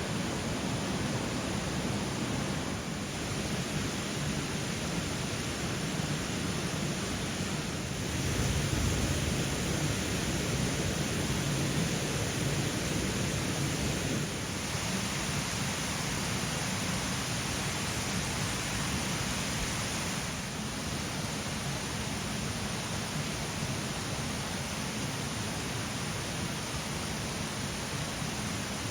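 Small mountain stream flowing, a steady rush of water that grows a little louder about eight seconds in and eases back near twenty seconds.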